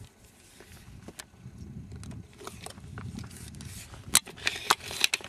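Crunching in deep fresh snow over a low rumble, with a quick run of sharp, crisp crunches near the end.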